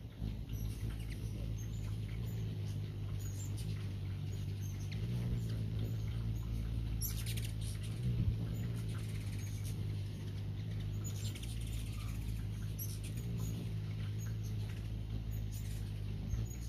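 Ruby-throated hummingbirds hovering close by: the steady low hum of their wings, rising and falling as birds come and go, with short high-pitched chips and squeaky twitters scattered through.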